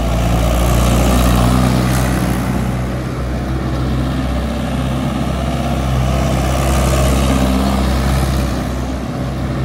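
Mahindra Yuvo 575 4WD tractor's four-cylinder diesel engine running steadily as the tractor drives in tight circles, the engine note swelling and easing twice.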